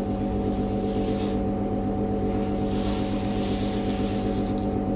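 Steady machine drone in a garage workshop: a low hum with several fixed tones, running on unchanged without any speeding up or slowing down.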